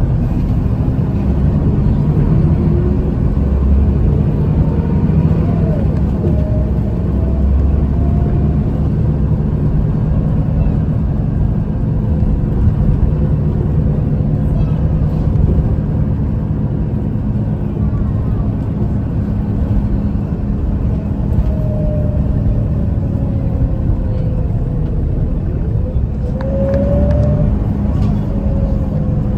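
City bus engine and drivetrain running under way, heard from inside the passenger cabin as a steady low rumble, with a fainter whine that rises and falls in pitch as the bus speeds up and slows.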